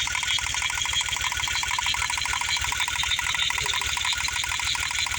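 VW VR6 six-cylinder engine idling with a fast, even pulse. The engine is being checked for a misfire that comes on when water gets on the ignition, a sign of spark leaking to ground.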